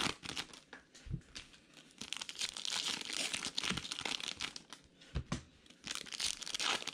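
Foil wrapper of a Bowman Chrome baseball card pack crinkling and tearing as it is pulled open by hand, loudest from about two to four seconds in, with the cards slid out and set down.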